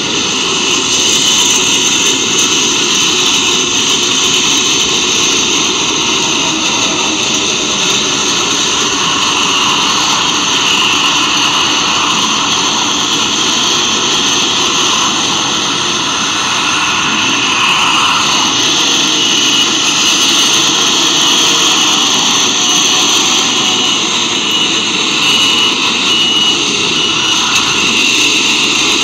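Steady, high-pitched whirring of a small camera drone's propellers and motors, held level while hovering, with no breaks.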